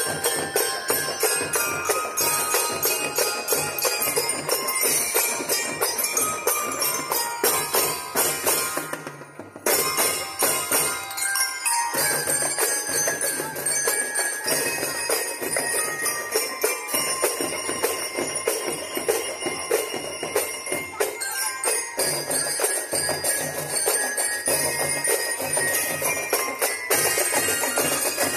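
Drum and lyre corps playing: bell lyres ring out a melody over snare and bass drums beating a fast march rhythm. The playing breaks off briefly about nine seconds in, then resumes.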